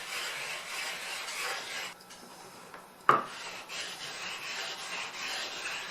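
A Japanese waterstone being ground in circles against a wet flattening stone, with a steady gritty rasp of stone on stone as it is dressed flat. The rubbing stops briefly about two seconds in, and a single knock about three seconds in comes before it starts again.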